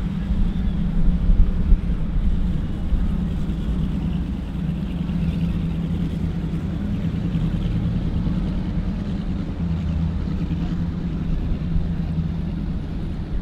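Motorboat engines running with a steady low drone.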